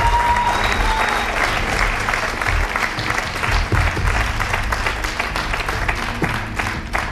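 Studio audience applauding, with a short musical sting that ends about a second in.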